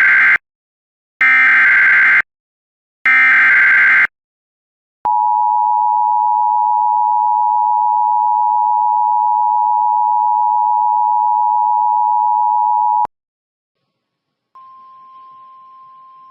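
Emergency Alert System alert tones announcing a severe thunderstorm warning: three one-second bursts of SAME header data, a harsh buzzing squawk, then the steady two-tone attention signal held for about eight seconds. After a pause of about a second and a half a faint steady single tone begins.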